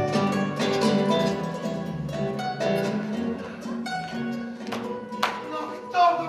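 Instrumental music on plucked strings: a run of quickly picked notes over held low notes, with two sharper strikes near the end.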